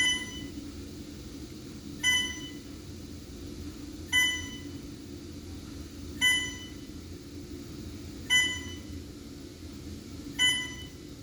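Heart monitor beeping: a short electronic beep about every two seconds, six in all, over a steady low hum.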